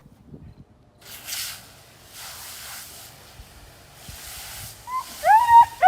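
Three or four soft bursts of hiss, then near the end a dog starts whining in high, bending cries.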